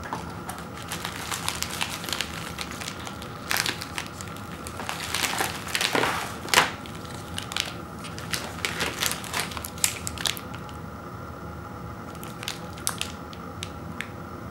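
Crinkly plastic granola-bar wrappers rustling and crackling in irregular bursts as a handful of wrapped bars is handled and set down in a pile. Loudest about six seconds in, then mostly quiet for the last few seconds apart from a couple of faint crackles.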